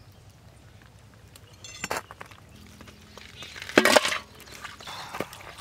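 Raw dressed quail meat being handled and dropped into a large aluminium vessel, giving a few sharp clinking knocks against the metal, the loudest about four seconds in.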